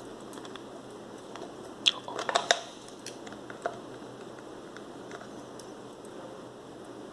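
Metal bottom plate of a Zorki 1 rangefinder camera unlocked and lifted off the body: a quick cluster of sharp metallic clicks and a short clatter about two seconds in, then a single click and a few faint handling ticks.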